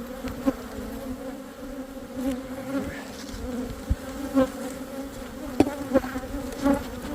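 Honeybees buzzing around an open hive in a steady hum, with a few short knocks about half a second in and again around the four-, five-and-a-half- and six-second marks.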